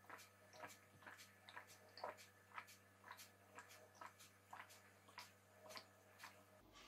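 Faint gulping of a person drinking water from a glass in long draughts: a steady run of swallows, about two or three a second.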